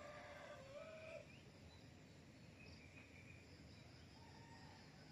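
A rooster crowing faintly once, the call ending about a second in, followed by a few faint short calls over quiet outdoor background noise.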